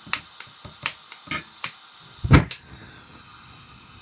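Hand lighter clicking over and over at a gas stove burner, trying to light it, followed by one loud thump about two seconds in and then a faint steady hiss.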